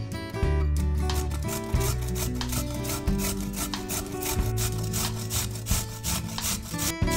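A carrot being grated on a stainless-steel box grater: quick rasping strokes, one after another, over soft background music.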